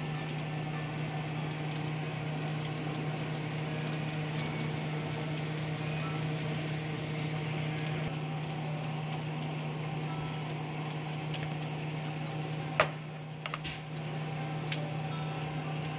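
Steady low mechanical hum, with one sharp click about thirteen seconds in and a couple of fainter clicks just after.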